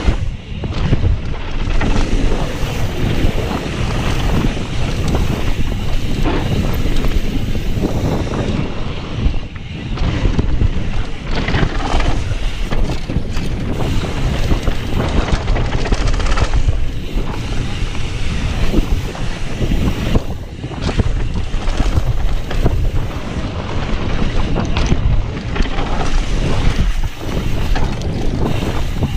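Wind buffeting the microphone of a camera on a mountain biker riding fast down a dirt singletrack, over the rumble of knobby tyres on dirt, with frequent knocks and rattles as the bike and camera jolt over bumps.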